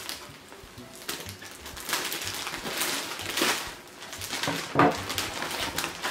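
Plastic packaging bag crinkling and rustling as it is handled and opened, an uneven run of crackles with the loudest near three and a half and five seconds in.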